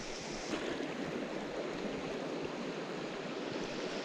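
Mountain stream water rushing steadily over its bed, a continuous even hiss.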